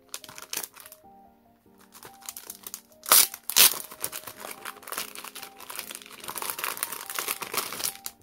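Packaging being crinkled and handled as it is unwrapped: a few light rustles early, then two loud crinkles about three seconds in and dense crinkling until near the end. Soft background piano music plays throughout.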